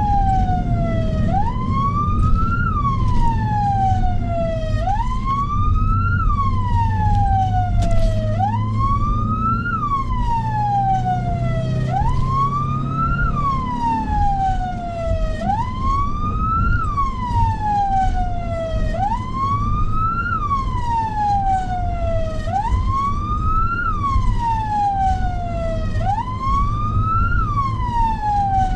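Emergency vehicle siren on a slow wail, each cycle rising quickly in pitch and then falling more slowly, repeating about every three and a half seconds, over a low steady rumble.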